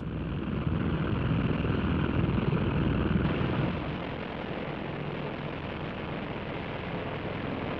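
Steady low drone of aircraft engines with a hiss over it, easing off slightly about four seconds in.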